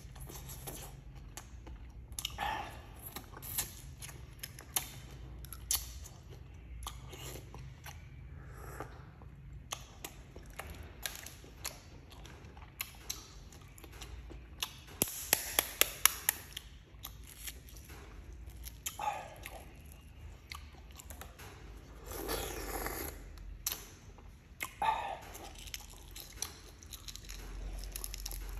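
Close-up eating sounds: chewing, biting and crunching food, with scattered clicks and a quick run of sharp clicks about halfway through.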